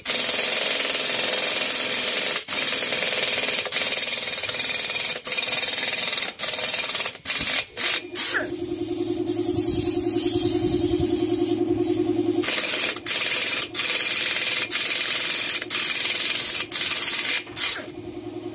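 Pneumatic impact wrench running in repeated bursts on a bolt of a scooter's engine case, with loud air hiss and many brief stops as the trigger is let off. For a few seconds in the middle it changes to a quieter, steadier buzz.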